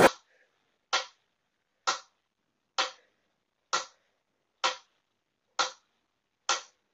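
Pyramid-shaped mechanical metronome ticking steadily, seven ticks just under a second apart.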